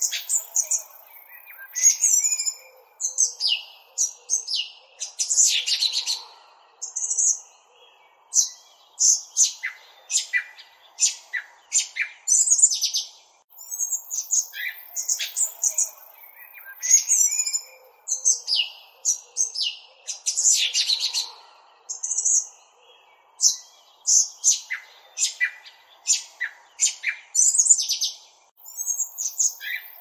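Small birds chirping and twittering in quick, high calls and short trills, many calls overlapping. The same sequence repeats about every 15 seconds, like a looped recording of birdsong.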